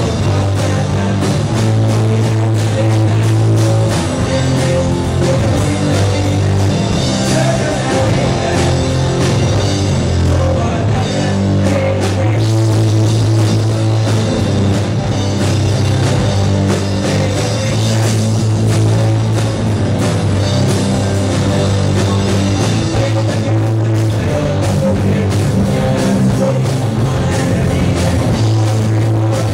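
Live rock band playing loudly: electric guitars, bass guitar and drum kit in a steady, driving song.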